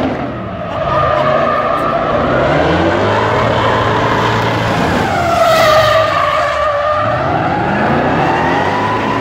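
A drifting car's tyres squealing in a long, wavering howl over its running engine, loudest about halfway through.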